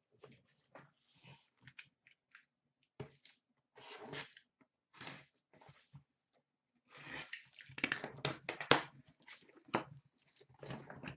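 A cardboard master case of trading card boxes being dragged, lifted and opened by hand: a run of short scrapes, rustles and crackles of cardboard and packing tape, busiest and loudest about seven to nine seconds in.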